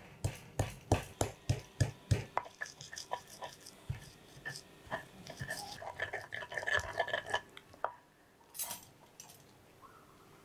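Stone pestle pounding and grinding chillies, garlic and candlenuts into a spice paste in a stone mortar. Firm knocks come about three to four a second for the first two seconds, then lighter taps and gritty grinding. A brief scrape comes about eight and a half seconds in.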